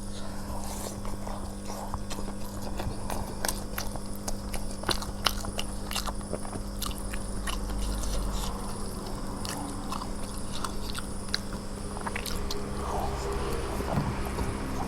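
A person chewing and eating food close to the microphone, with scattered small clicks and smacks.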